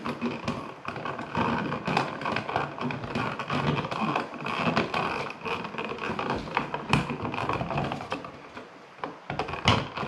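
Electrical wires being folded and shoved back into a wall outlet box by hand: irregular rustling and scraping of wire against the box, with a sharp click about seven seconds in and another near the end.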